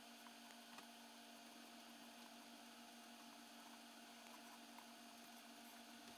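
Near silence: a faint steady electrical hum and hiss, with a few faint ticks.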